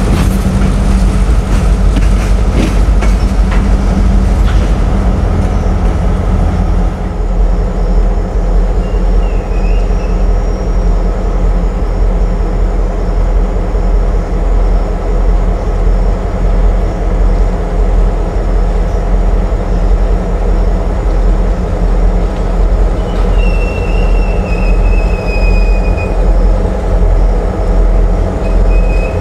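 A freight train moving slowly, with a diesel locomotive's engine running in a steady low hum. There are clicks and knocks from wheels and couplings in the first several seconds. The steel wheels squeal high-pitched on the rails briefly once, then longer about three-quarters of the way through.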